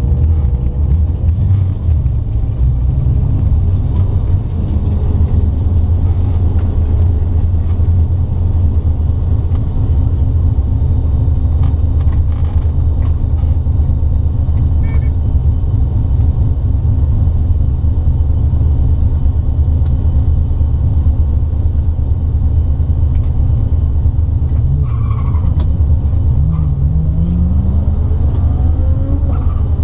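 Mazda RX2's turbocharged 13B twin-rotor rotary engine idling, heard from inside the cabin as a loud, steady low rumble. Near the end an engine note rises in pitch over a few seconds.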